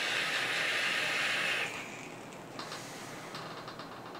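A long draw on a rebuildable dripping atomiser fired at about 100 watts: a steady hiss of air drawn through the atomiser, mixed with the Ni80 coil sizzling, for about the first two seconds. It then drops to a quieter hiss with a few faint ticks.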